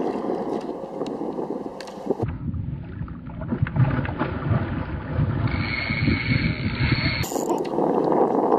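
Hooked redfish thrashing and splashing at the water's surface beside the boat, over wind and lapping water. About two seconds in the sound turns muffled with a heavy low rumble, clearing again near the end.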